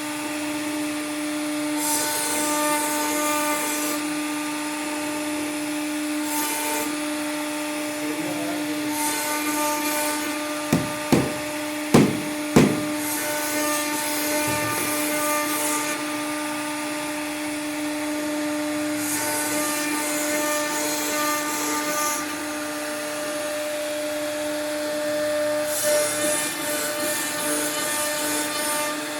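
CNC router carving wood: the spindle runs with a steady hum, and the bit's cutting noise comes in stretches of hiss every few seconds. A few sharp knocks come near the middle.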